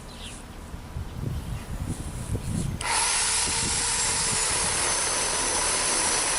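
Electric pole saw switches on suddenly about three seconds in and runs steadily at full speed, its motor and chain giving a loud, even buzz with a faint high whine. Before it starts there are a few light knocks and rustles.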